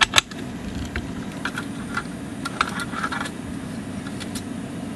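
Small metal clicks and taps of hands and tools working the nuts on the brass back plate of a grandfather clock movement: one sharp click just after the start, then a scatter of lighter clicks, over a steady low hum.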